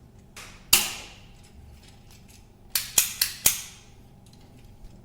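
Modular 20 A power socket being pressed into a plastic switch-plate frame: one sharp plastic snap about three-quarters of a second in, then four quick clicks close together around three seconds in as its clips lock into place.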